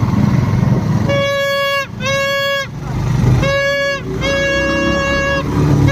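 A horn sounding one steady, buzzy note in four blasts of about half a second to a second each, starting about a second in, with a fifth starting at the very end. A low engine rumble runs underneath.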